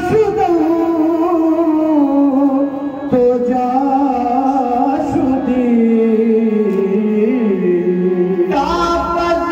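Qawwali singing: one male voice holds a long, drawn-out phrase that slides slowly downward in pitch. About a second before the end, a fuller, steadier ensemble sound comes back in at a higher pitch.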